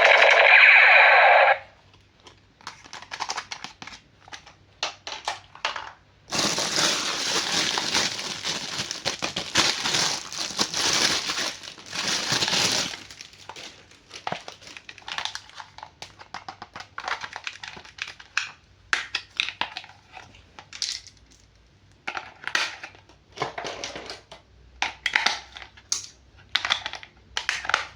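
Plastic toy packaging being handled: irregular crinkles and clicks, with a dense stretch of crinkling in the middle lasting about six seconds. A short pitched electronic sound cuts off about a second and a half in.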